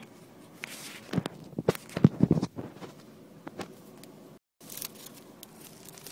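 Irregular clicks, knocks and rustling of handling noise inside a car's cabin, with a cluster of sharp knocks between about one and two and a half seconds in. A brief cut to silence comes about four and a half seconds in.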